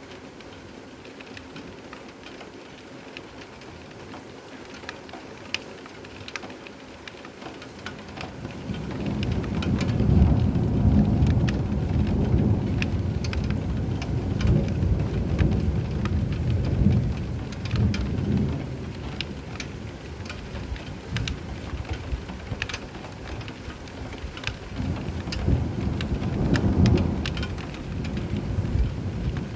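Steady rain falling with a patter of individual drops, and rolling thunder that builds about eight seconds in, rumbles for some ten seconds, then swells again near the end.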